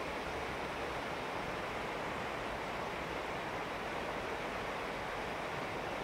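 Mountain stream rushing steadily over rocks and small rapids.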